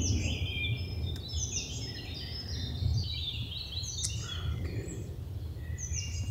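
Several songbirds singing a busy chorus of short chirps and slurred notes, over a steady low rumble.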